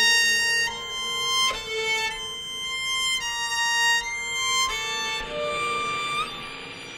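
Two violins bowing sustained high notes together, the pitches shifting in steps about every second. From about five seconds in the sound turns rougher and noisier, with a hiss over the notes.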